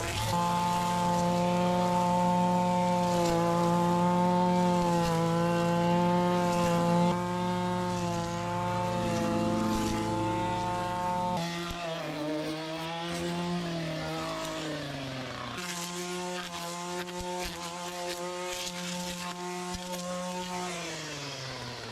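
Gas-powered string trimmer (whippersnipper) running at high throttle with a steady high engine note. About halfway through it eases off, the pitch sagging and wavering for a few seconds before settling back to a steady run.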